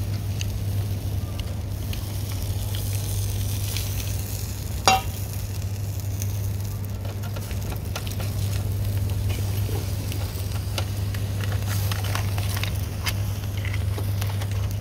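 Crayfish sizzling and crackling on a braai grid over hot coals, with a sharp click about five seconds in, over a steady low hum.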